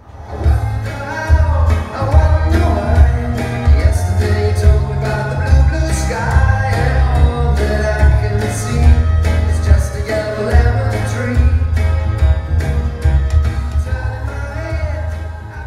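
A song with singing over a heavy, pulsing bass beat, played through a 6J1 valve tube preamp and bookshelf speakers. It swells up to full level within the first second or so.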